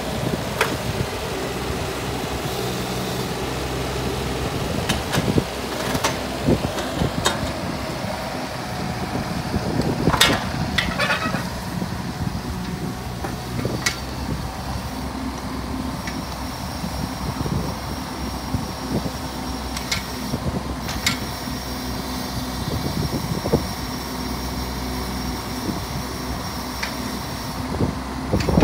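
JCB 18Z-1 mini excavator's diesel engine running steadily under hydraulic load as the machine tracks and works its boom and arm, the engine and hydraulic tone shifting as the load changes. Sharp metallic clanks come every few seconds.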